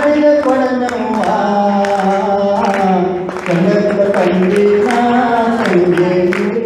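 A voice singing a slow devotional chant in long held notes that glide gently up and down.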